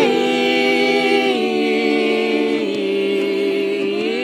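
Unaccompanied singing voice holding one long note, stepping down in pitch about a second and a half in and again near three seconds, then sliding up near the end.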